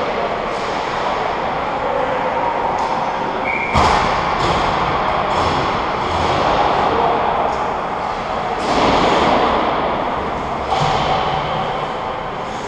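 Ice hockey game noise in an indoor rink: a continuous wash of skating and play sounds. A sharp thud comes about four seconds in and a weaker one near eleven seconds.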